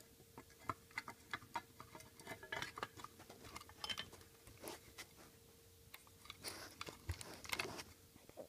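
Faint, irregular small clicks and crackles of hands handling the plastic shell of a Lionel O-gauge model locomotive, over a faint steady hum.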